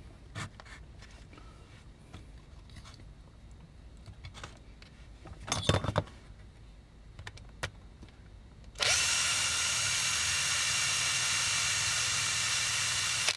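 Small power drill boring into a toy's rivet, starting about nine seconds in and running steadily with a high whine until it stops at the end. A few light knocks come first as the toy and drill are handled.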